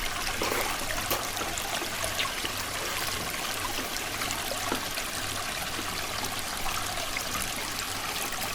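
Creek water flowing in a steady, even trickle.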